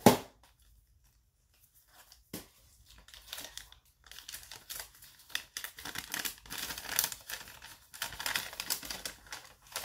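Paper crinkling and rustling as items are pulled from a cardboard box and a folded paper instruction sheet is opened out, filling most of the second half. A single sharp knock comes a little over two seconds in.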